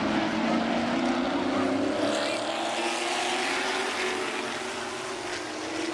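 A field of Super Late Model stock cars with V8 engines racing past in a pack, their engine notes overlapping and sliding up and down in pitch as the cars go by.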